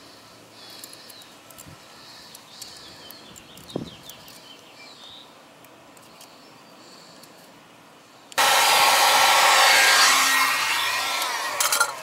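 Quiet handling of a wire-crimping tool with small clicks, one sharper about four seconds in. About eight seconds in a loud steady rushing noise starts abruptly and eases slightly near the end.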